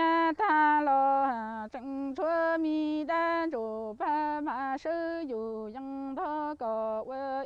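A woman singing Hmong lug txaj (kwv txhiaj) sung poetry unaccompanied: one voice in long, held notes that slide and bend in pitch, broken by short breaths.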